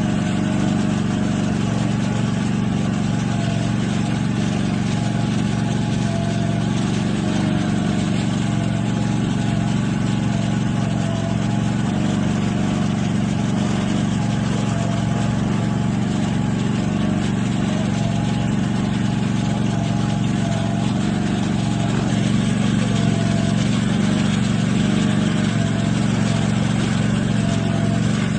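Gas-engine pressure washer running steadily: the small engine's even hum under the hiss of the high-pressure water jet.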